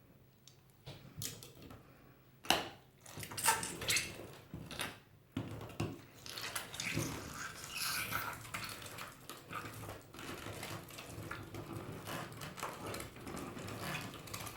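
Hand-cranked plastic manual meat grinder turning through fresh raw pork, with wet squelching and irregular clicks and creaks as the meat is forced through the blade and plate. It starts in scattered strokes and becomes continuous about five seconds in.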